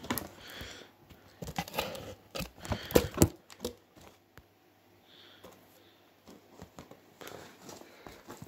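A cardboard toy box and plastic packaging being handled: a quick run of rustles and sharp taps, loudest about three seconds in, then fainter rustling near the end.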